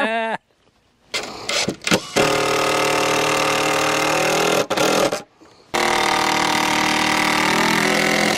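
Cordless power drill running flat out in two long steady runs of about two and a half to three seconds each, after a few short clicks, driving fasteners into cedar boards.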